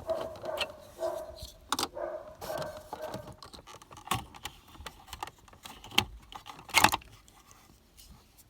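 Plastic dashboard trim clips being worked loose and small parts handled: a run of irregular clicks, knocks and light rattles, the sharpest about six and seven seconds in.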